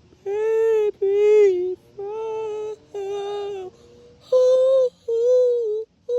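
A person singing a string of held, wordless notes in a high voice, about one a second. The notes step up slightly in pitch partway through.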